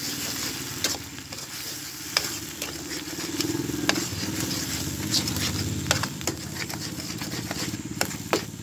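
Shrimp paste (bagoong alamang) sizzling in a wok while a metal spatula stirs and scrapes it. The spatula knocks and clinks sharply against the pan many times.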